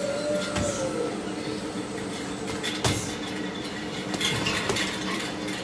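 Boxing gloves punching a double-end bag: scattered sharp smacks as the bag is hit and rebounds on its cords, the loudest hit about three seconds in and a quicker run of hits after four seconds.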